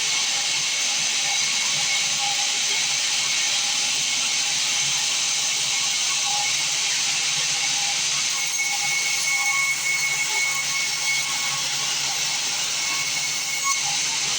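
Sawmill band saw running with a steady hiss. A thin high whine joins in about two-thirds of the way through.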